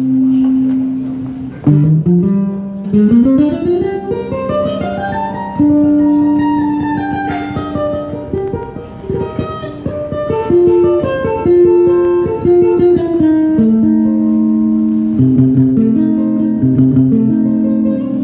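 A small plucked-string instrument played solo. A fast run of notes climbs and then falls back, fast strumming follows, and the passage ends on held chords.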